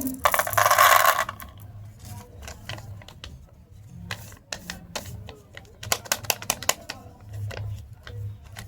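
Chocolate packaging being opened by hand: a loud tearing rip near the start, then a run of sharp crinkles and clicks as the wrapper is handled.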